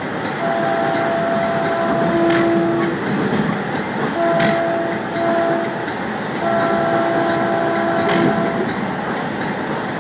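A passenger train's horn, heard from on board, sounding a long blast, two short ones about four seconds in, and another long blast ending near the end, as the train approaches a level crossing. Under it the train runs steadily on the rails, with a few sharp clicks from the wheels.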